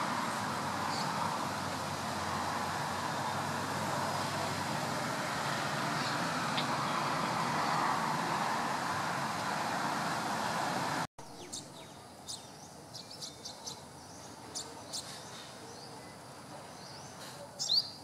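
Steady rushing background noise with a few faint high bird chirps. It cuts off abruptly about eleven seconds in, leaving a quieter background with many short, high bird chirps scattered through it. The loudest chirp comes near the end.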